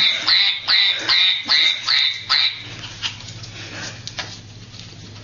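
Small dog yipping: about seven short, high-pitched yips in quick succession that stop about halfway through, followed by faint taps.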